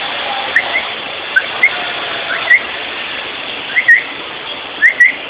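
Short, high whistled notes, each a quick upward glide, mostly in quick pairs about once a second, over a steady hiss.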